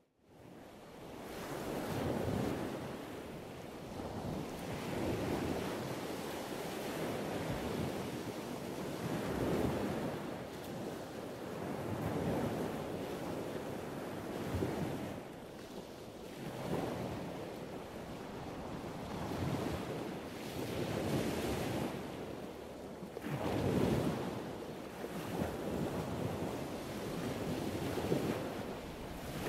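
Sea waves washing in and breaking: a steady rush that swells every two to three seconds.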